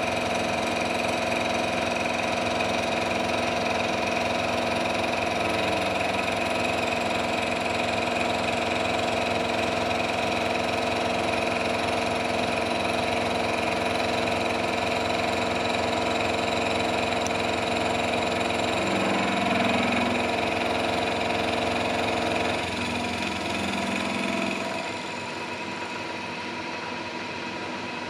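A milling machine running, its end mill cutting a thin metal plate as the table feeds it past the cutter: a steady mechanical hum with several steady tones. The tone shifts about two-thirds of the way in, and the sound drops in level near the end.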